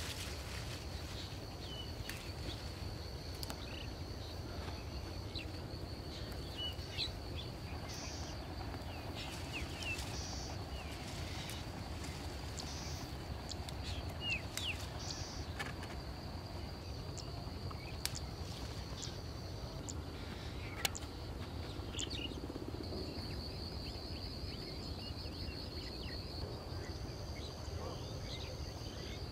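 Rural outdoor ambience: birds chirping in short scattered calls over a steady low rumble and a continuous high insect buzz that pulses towards the end. A few sharp clicks stand out now and then.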